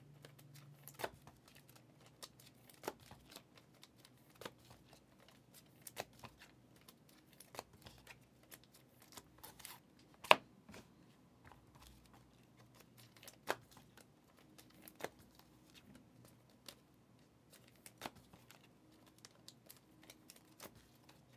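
2023 Prizm NFL football trading cards being flipped off a stack and laid down one at a time, a soft click about every second and a half, with one sharper snap about ten seconds in.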